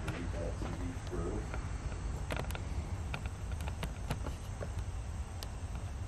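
Scattered small clicks and scuffs, like footsteps on a gritty floor, over a steady low rumble.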